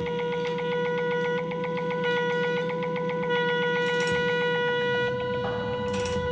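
Live improvised jazz with electronics: a wind instrument holds one long note, steady in pitch, over a fast, even electronic pulse. Two short cymbal washes come past the middle and near the end.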